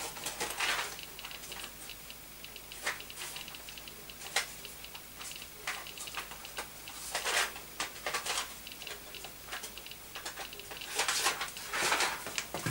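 Geiger counter with a Soviet-era STS Geiger–Müller tube clicking at irregular, random intervals as it counts radiation from a radioactive vintage watch held behind a piece of lead sheeting.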